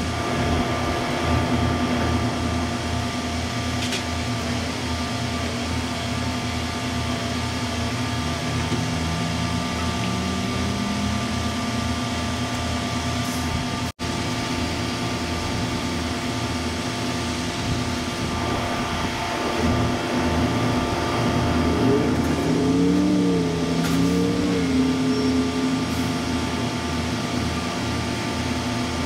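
Diesel engines of a line of railway tie-gang maintenance machines running steadily with a fast, even throb. Partway through, one engine rises in pitch, and near the end a wavering tone wobbles up and down over the drone.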